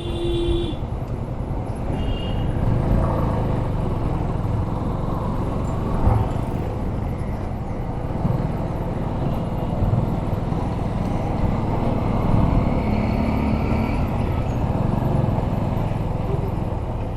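Yamaha FZS25 motorcycle's single-cylinder engine running under way in traffic, with steady wind and road noise on the rider's camera.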